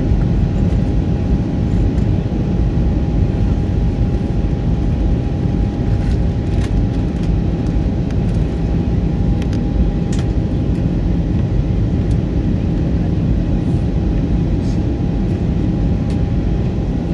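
Airbus A320 cabin noise in flight on the descent: a steady loud rumble of engines and airflow, with a thin steady whine running through it.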